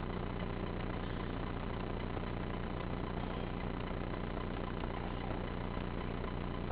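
A steady mechanical hum with a few constant tones and no change in level.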